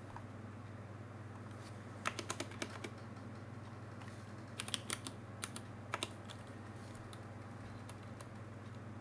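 Computer keyboard keys being typed in two short runs of clicks, about two seconds in and again from about four and a half to six seconds, over a steady low hum.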